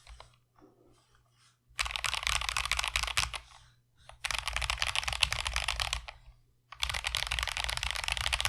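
Mechanical keyboard fitted with stock, unlubed Akko CS Jelly Pink light linear switches being typed on fast, in three bursts of keystrokes separated by short pauses. The switches give a higher-pitched clack.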